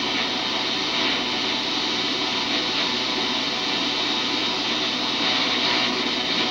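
A motor running steadily, with an even whirring noise that does not change.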